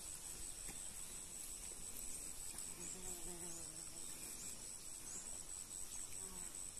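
Faint, steady high-pitched insect trill, pulsing evenly.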